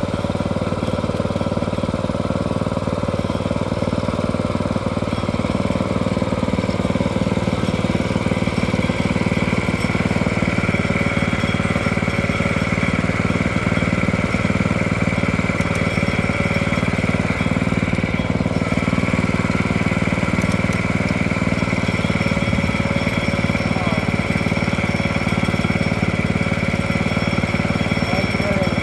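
Engine of a log-milling sawmill running steadily under power, with a higher steady whine growing stronger about ten seconds in.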